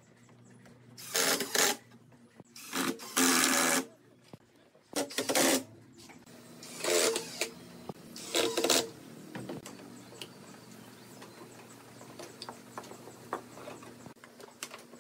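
Cordless drill driving screws through wooden slats, in about six short bursts of half a second to a second each over the first nine seconds. After that come only light handling clicks.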